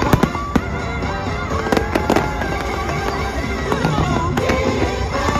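Fireworks bursting in a string of sharp bangs over the show's loud orchestral music soundtrack.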